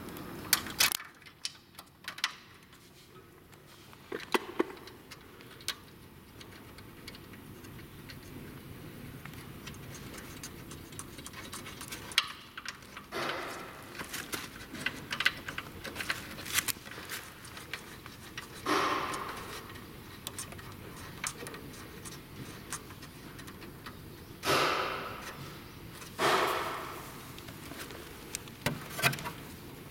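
Hands working on treadmill wiring: scattered small clicks and knocks of spade connectors and wires being handled and pushed onto terminals, with a few short rustling swishes.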